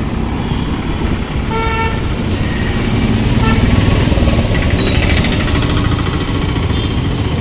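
Busy street traffic, with vehicle engines running in a steady low rumble. A vehicle horn sounds briefly about a second and a half in, and a fainter short honk follows a couple of seconds later.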